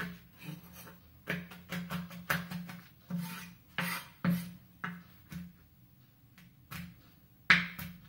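Kitchen knife chopping almonds on a wooden cutting board: irregular sharp chops in quick runs, with a pause a little after the middle and the loudest chop near the end.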